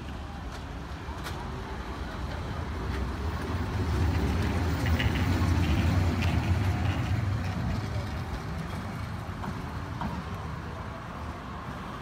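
Historic electric tram car passing close by on its rails: a low rumble that builds to its loudest about midway as the car goes past, then fades as it draws away.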